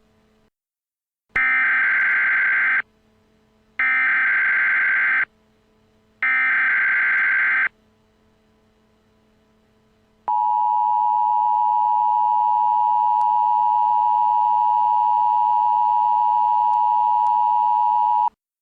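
Emergency Alert System header: three short bursts of SAME digital data, each about a second and a half, then the steady two-tone EAS attention signal held for about eight seconds before cutting off sharply. Together they mark the start of a new emergency alert.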